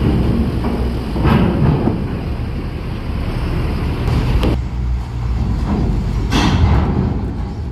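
Mercedes-Benz coach's diesel engine running with a steady low rumble as the coach drives up the steel ramp into a ferry, with a few clunks along the way.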